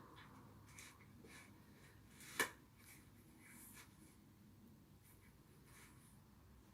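Near silence: room tone with faint scattered rustles and scrapes, and one sharp click about two and a half seconds in.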